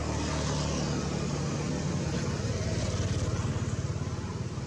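A motor vehicle engine, a low pulsing hum that swells to its loudest about three seconds in and then eases off.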